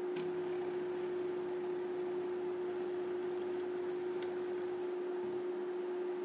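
Stepper motors of a small homemade CNC pen plotter running as it draws, a steady hum at one pitch, with a faint tick near the start and again about four seconds in.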